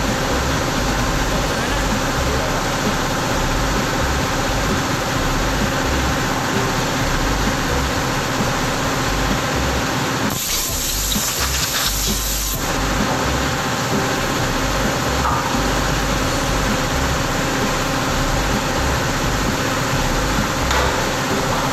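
Steady machinery drone, with a compressed-air blow gun hissing for about two seconds near the middle, blowing aluminium chips off a saw table.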